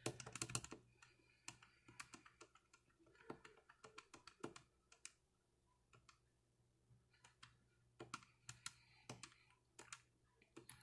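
Plastic keys on an AGPTEK HA0021 dialpad telephone clicking faintly as one key is pressed over and over, about two presses a second, stepping the day forward while the date is being set.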